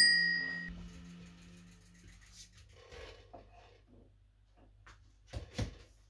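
A small handlebar dome bicycle bell's ring dying away over about the first second, as background music fades out. Then it is nearly quiet apart from a few faint knocks, the loudest two close together near the end.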